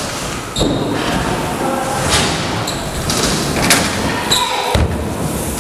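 BMX bike riding on wooden skatepark ramps: tyres rolling and several thuds of wheels landing and hitting the ramps, with a few short high squeaks, over the loud din of a busy indoor park.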